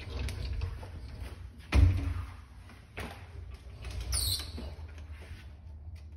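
Handling and movement noise from a phone being carried through a doorway: a low rumble with knocks, a loud thump about two seconds in, and a brief high scrape just after four seconds.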